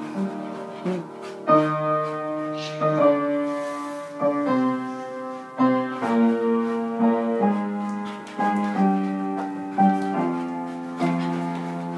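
Piano being played: a slow piece of held notes and chords, a new note or chord struck about once a second.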